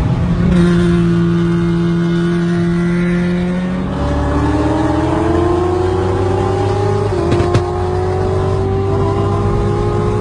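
Car engines pulling hard at highway speed, the engine note climbing steadily, dropping with a gear change about seven seconds in, then climbing again. A single sharp crack is heard just after the shift.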